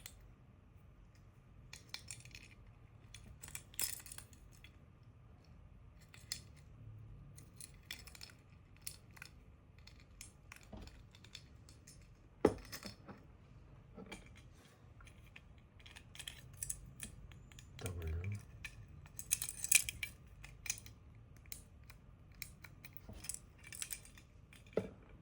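Small plastic keycap toy figure being handled and worked by hand: irregular plastic clicks and taps, with one sharper click about twelve seconds in and a quick run of clicks near the end.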